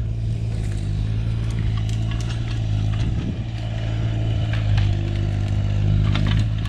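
Excavator engine running steadily, with a few light clanks as the bucket and thumb handle logs.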